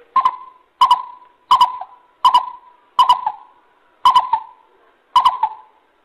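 Coucal ('bubut') calling: a run of seven hooting notes, each starting sharply and then fading, spaced a little under a second apart.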